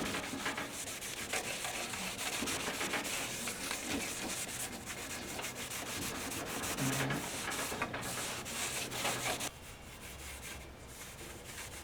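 Rubbing and scrubbing as the Shopsmith bandsaw is wiped down with mineral spirits, a quick, irregular back-and-forth. The rubbing stops about three-quarters of the way through, leaving it much quieter.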